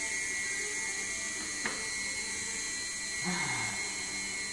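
Small electric motor driving the hydraulic pump of a scale model crane, whining steadily at a high pitch. A single sharp click comes about a second and a half in.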